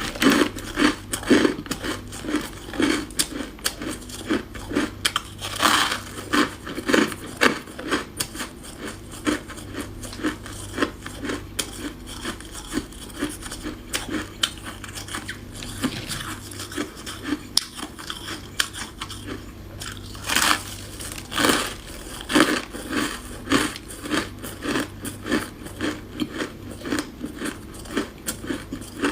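Close-up biting and chewing of chunks of freezer frost: dense, continuous crunching and crackling, with louder crunches every second or so.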